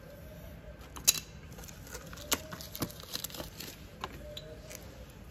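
Brake pads being handled, their metal backing plates giving scattered small clicks and clinks, the sharpest about a second in.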